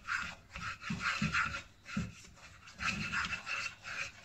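A spoon scraping around the bottom of a small metal saucepan, stirring a butter-and-flour roux in quick, rhythmic strokes, about two or three a second.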